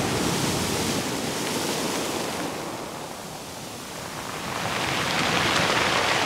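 Ocean surf washing against a rocky shore: a steady rushing noise that eases off about three seconds in and swells again near the end.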